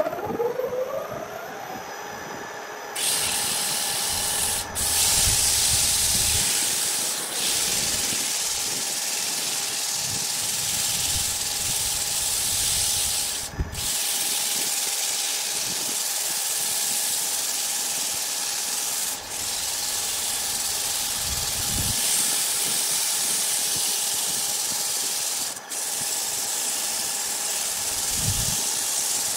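Wood lathe motor spinning up with a rising whine, then running with a steady whine under a loud, even hiss of sandpaper held against the spinning wooden workpiece. The hiss breaks off briefly a few times.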